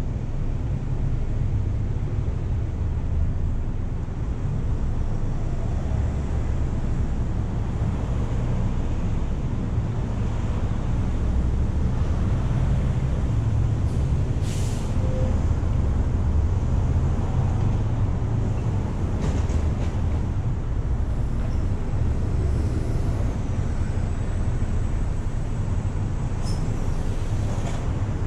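Steady low rumble of idling traffic while stopped at an intersection, with a short high hiss about halfway through and a couple of fainter ones near the end.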